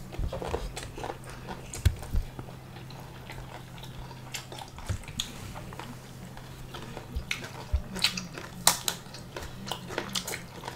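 Close-up eating sounds of people chewing rice and pork eaten by hand: wet chewing with many short, sharp mouth clicks, coming thicker in the second half, over a steady low hum.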